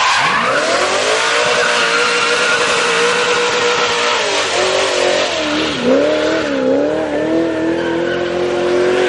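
Holden Commodore ute's V8 revved hard and held at high revs during a burnout, over a loud hiss of spinning rear tyres. The revs climb in the first second, hold steady, then bounce up and down in the second half.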